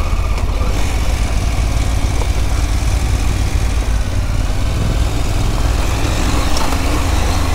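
KTM Adventure R motorcycle engine running steadily at low speed on a gravel track, heard from the rider's helmet with a steady rush of wind and tyre noise.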